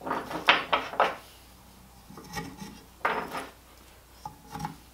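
Steel twist drill bits being pushed into and twisted in drilled holes in a wooden holder block while it is being test-fitted. Short wooden scraping rubs with light clicks come in several separate bursts.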